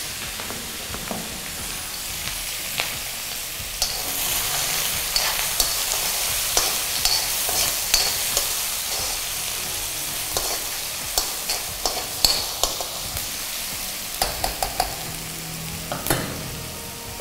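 Freshly added chopped onions sizzling in hot oil in a kadai, the start of sautéing them. From about four seconds in, a spatula stirring them clicks and scrapes repeatedly against the pan.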